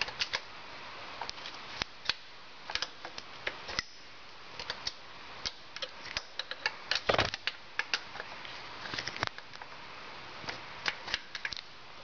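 Irregular light metallic clicks and clinks of a hand tool working the nut off the main battery cable on a Harley-Davidson Evo Sportster, over a steady background hiss.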